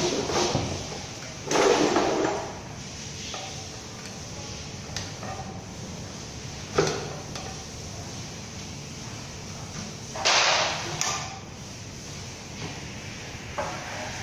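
Hand work on a partly stripped engine on a chain hoist: a few clattering, scraping bursts of tools and parts being handled, with one sharp knock about seven seconds in.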